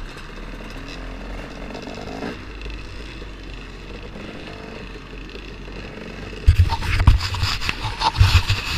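Steady low background noise, then from about six and a half seconds in, repeated heavy thumps and scraping rubs right at the microphone, typical of the camera or its housing being handled.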